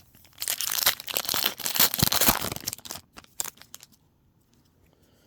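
Foil wrapper of a trading card booster pack crinkling and tearing, a dense crackle lasting about two and a half seconds, followed by a few light clicks and rustles.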